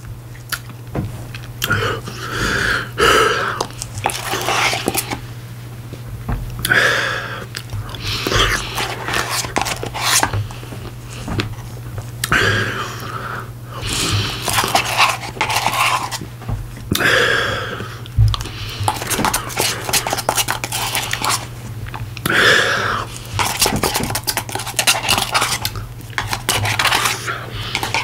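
A spoon clicking and scraping in a Blizzard cup while soft ice cream is eaten fast, with chewing and heavy breaths between mouthfuls. A steady low hum runs underneath.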